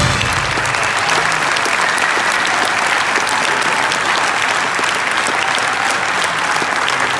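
Audience applauding steadily in a circus tent, many hands clapping at once. The music stops just as the applause takes over, its last low note dying away in the first second and a half.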